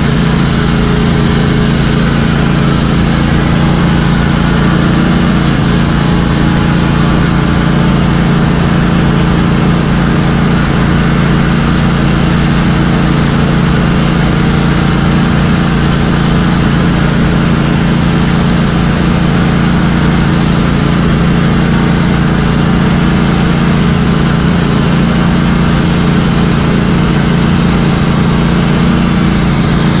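Woodmizer LT15 Go sawmill's gasoline engine running steadily under load while its band blade saws through an oak log.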